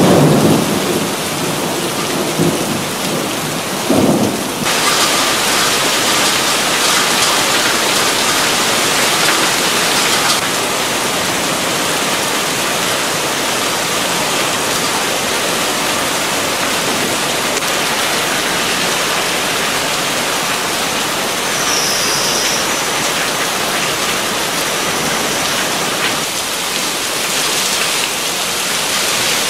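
Heavy downpour hammering onto a flooded street and splashing into standing water, a dense steady hiss. Brief low rumbles of thunder sound near the start and again about four seconds in.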